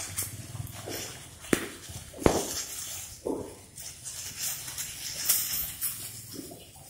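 Thin plastic fruit-protection bags crinkling and rustling as hands pull them open and off the fruit, with two sharp clicks a little before the middle.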